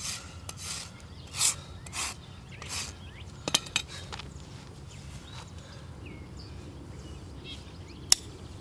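A hoof rasp scrapes across a draft horse's hoof wall in about four strokes during the first three seconds. A couple of sharp clicks follow, and near the end there is one loud, sharp click as hoof nippers are set on the hoof wall.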